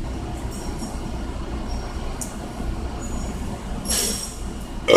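A steady low rumble, with a brief noise about four seconds in. A loud burp begins right at the very end.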